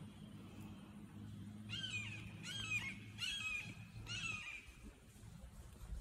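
A hawk calling: four high calls, each slightly falling in pitch, given in quick succession starting nearly two seconds in.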